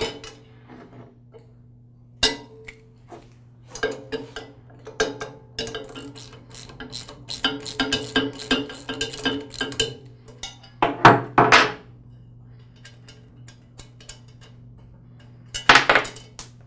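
Steel-on-steel clinks and clicks as the shear bolt is worked out of a Troy-Bilt Super Bronco tiller's tine shaft, with a quick run of clicks in the middle. Heavier clunks follow, about eleven seconds in and again near the end, as the steel tine assembly is worked off the shaft.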